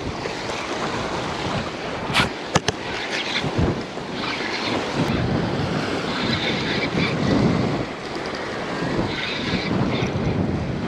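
Waves washing against the jetty's rocks, with wind buffeting the microphone; the wash swells louder in the middle. A couple of sharp knocks come a little over two seconds in.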